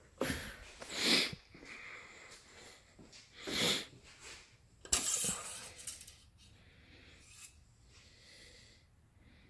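Handling noises under the hood: three short rustles with faint clinks, about a second in, near four seconds and around five seconds, then quieter handling as the engine-oil dipstick is drawn from its tube.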